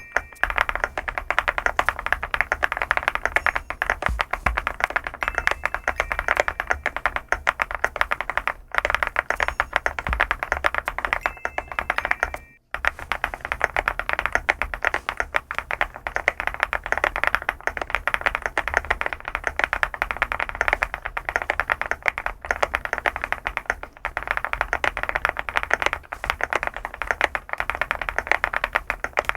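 Continuous fast typing on an SPM LUCK68 custom mechanical keyboard: a dense run of key clacks, with a brief break about twelve seconds in.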